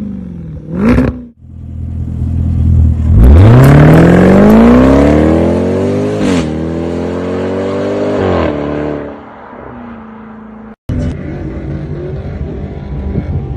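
Land Rover Defender V8 through a Quicksilver valved exhaust with the valves open: a sharp rev at the start, then a hard acceleration. The engine note climbs steadily, drops and climbs again at two upshifts, and fades away as the car pulls off. After a sudden cut near the end, a Defender engine runs under load at a lower level.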